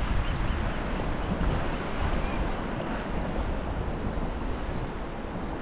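Wind buffeting the microphone over small sea waves lapping around the kayak, a steady rushing noise.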